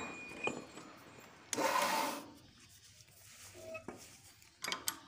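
Drill press bit biting briefly into a cast metal part: a short rasping burst about a second and a half in. Light metal clicks of handling near the end.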